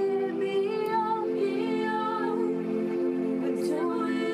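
A woman singing a slow worship melody in a few drawn-out phrases over held pad chords.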